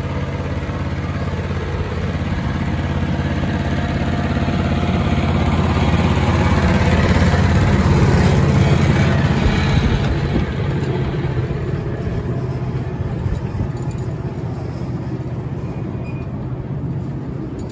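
Diesel engine of a miniature-railway locomotive running as it passes close by. It grows louder to a peak about halfway through, then fades as the train moves away.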